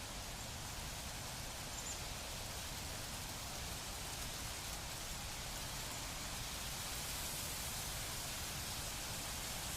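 Wind rustling through the leaves of plants, a steady even hiss.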